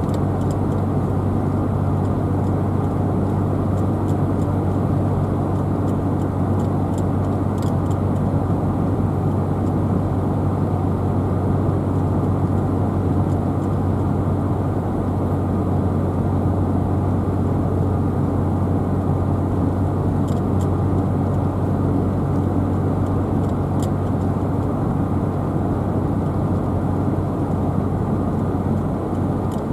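Car driving at a steady speed: an even drone of tyre and engine noise with a low hum. A few faint ticks come through about a quarter of the way in and again about two-thirds in.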